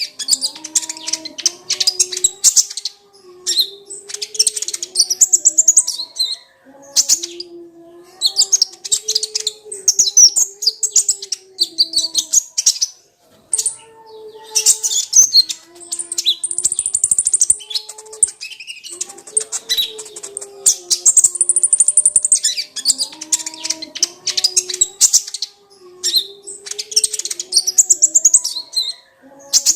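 Kolibri ninja sunbird singing: bursts of rapid, high-pitched chattering and twittering, each lasting a second or two with short pauses between. A fainter low wavering tone runs underneath.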